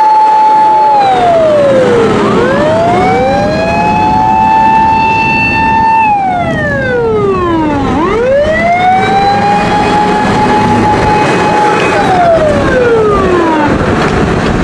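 Fire truck siren wailing loudly in long cycles: it winds up, holds a high steady note for a few seconds, then falls away, three times over. A second siren overlaps it more faintly, over a low engine rumble.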